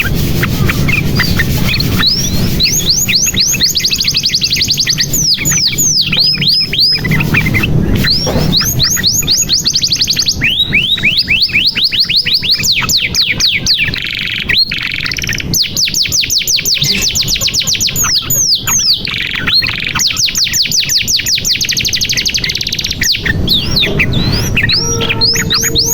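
Male domestic canary singing a long continuous song of rapid trills: fast runs of repeated down-slurred notes that change speed from run to run, with a held steady note about fourteen seconds in.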